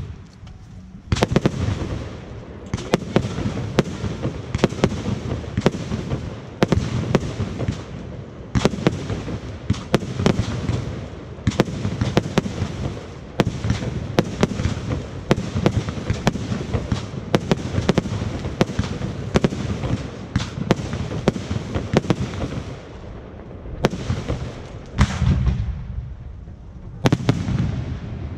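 Fireworks display: many sharp bangs and cracks in quick succession over a steady low rumble, starting about a second in and easing off briefly near the end before more bangs.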